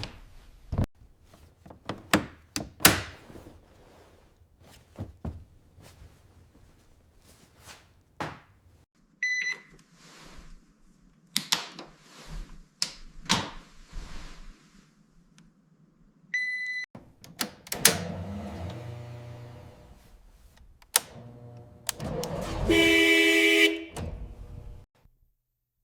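A run of knocks and thunks, broken twice by a short high beep. Near the end comes a longer pitched sound, then a loud pitched tone lasting about a second.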